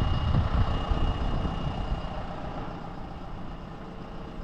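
Tractor engine running steadily and growing gradually fainter as it pulls away after being unloaded from a flatbed trailer.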